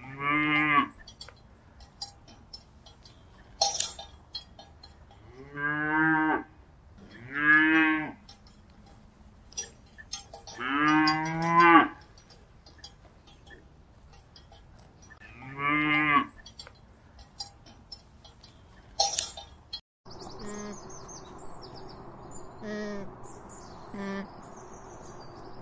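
Cattle mooing: about five long calls spread over most of the stretch, with a couple of sharp clinks between them. After a sudden change near the end, several shorter calls come over a steady hiss.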